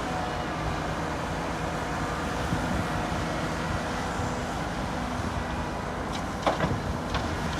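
Heavy diesel earthmoving machinery, an excavator and dump trucks, running steadily, with a few sharp knocks near the end.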